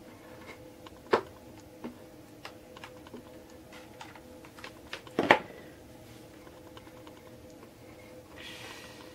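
Hands working a hot glue gun over a wooden board: scattered small clicks and taps, with two sharper knocks, one about a second in and a louder one about five seconds in, over a faint steady hum.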